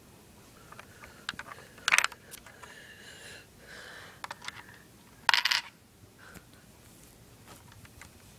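Clicking and rattling of a homemade Lego coin-operated candy dispenser, with plastic bricks and a nickel clattering as its lever is worked. Two short loud bursts of rattling clicks come about two seconds in and just past five seconds, with fainter clicks between.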